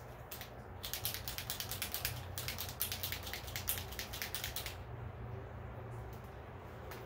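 Handling noise from a gloved hand working at the table: a rapid run of crackling clicks that stops abruptly about five seconds in.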